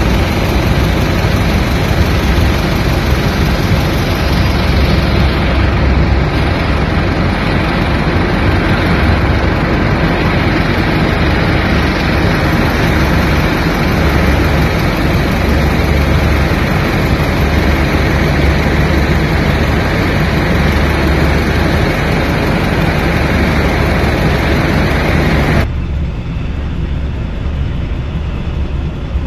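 Jet airliner engines running as an aircraft taxis, a loud steady noise with heavy low rumble and buffeting. Near the end the sound abruptly drops and thins out.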